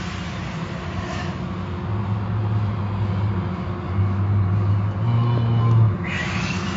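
Car wash machinery running: a steady low hum that swells and dips, with short rushes of hiss, the loudest about six seconds in.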